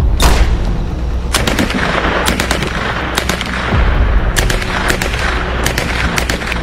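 Battle gunfire: irregular rifle shots and short bursts of machine-gun fire, some in quick pairs, over a steady low rumble.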